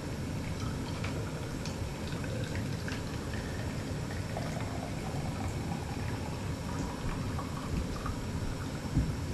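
Near-finished maple syrup boiling in a finishing pan while a hot sample is drawn off through the pan's valve into a hydrometer cup: a steady bubbling and pouring with small scattered ticks. A short thump comes near the end.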